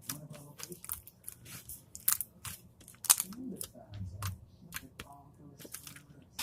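Pink slime being squished and worked by hand, making irregular sharp wet clicks and pops, several a second.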